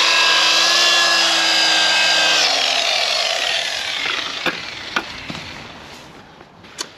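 Electric rotary buffer (car paint polisher) running steadily while polishing out scratches, then switched off about two and a half seconds in. Its whine falls in pitch and fades as the pad spins down, and a few light knocks follow.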